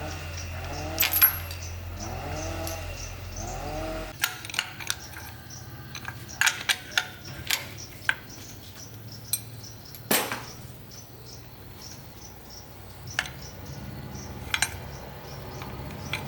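A dog whining in repeated rising-and-falling calls at first, over a low hum. Then come scattered sharp metallic clinks and taps, as of small metal parts or tools being handled and set down.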